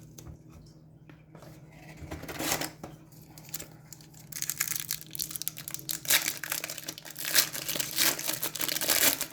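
Hockey card pack wrapper being torn open and crinkled by hand: a short crinkle about two seconds in, then almost continuous crinkling and tearing from about four seconds in.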